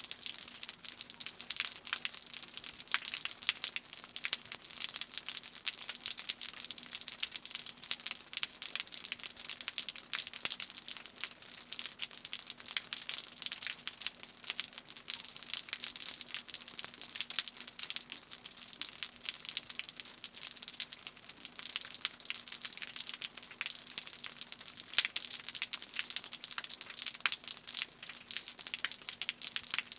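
Continuous, dense, irregular crackling made of many small clicks, with a faint steady hum underneath.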